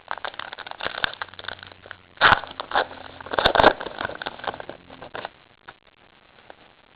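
Trading cards handled and flipped through by hand: a quick run of light clicks and rustles, with two louder card slaps about two and three and a half seconds in, dying away near the end.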